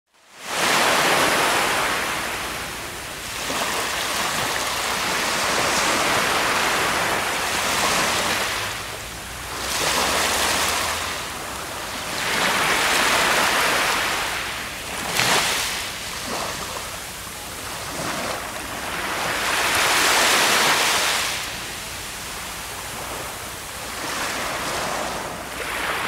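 Ocean waves washing up onto a sandy beach, the surf noise swelling and falling back every few seconds.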